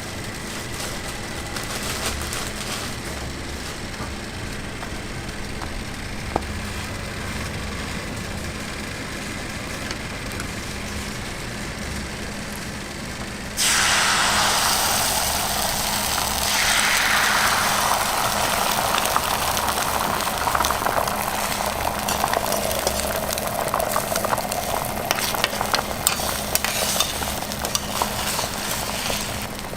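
Food put down on a hot griddle about halfway through starts sizzling loudly all at once, and the sizzle goes on with fine crackling to the end. Before that there is only a steady low background hum.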